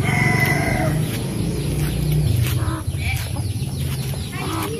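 Domestic chickens clucking: one drawn-out call in the first second, then shorter clucks.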